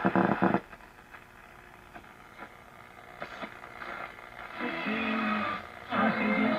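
Shortwave reception from a 1937 Philco 37-630 tube radio's loudspeaker as its tuning knob is turned across the band: hiss and static with brief snatches of signals, loud at the very start, then pitched tones coming in about four and a half seconds in.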